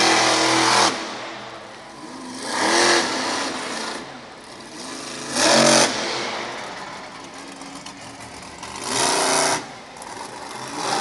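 Monster truck engine revving hard in short bursts, four times roughly every three seconds, with a smaller rev near the end.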